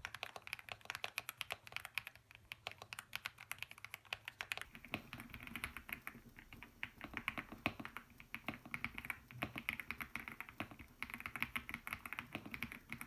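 Fast typing on a custom mechanical keyboard, a dense run of key clacks. About five seconds in the clacks turn deeper and fuller.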